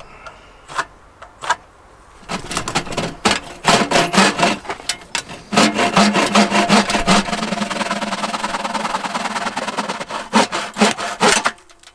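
Bow saw cutting through a rotten wooden post in quick back-and-forth strokes, starting about two seconds in and stopping just before the end. A few light knocks come before the sawing starts.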